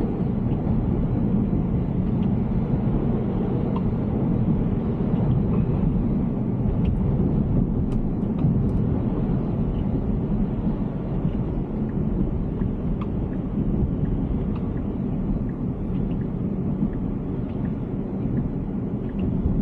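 Tesla Cybertruck driving: a steady, even low rumble of road and tyre noise, with a few faint ticks.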